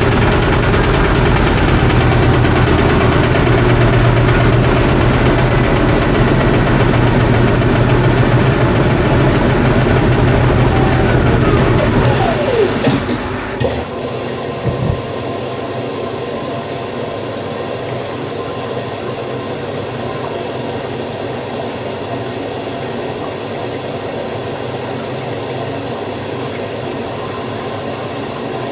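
Beko WDC7523002W washer-dryer finishing an interim spin: the drum spins with a loud steady running noise, then the motor's whine falls in pitch as the drum slows, and the sound drops sharply about 14 seconds in. After a single click, a quieter steady hiss and hum follow as the first rinse begins.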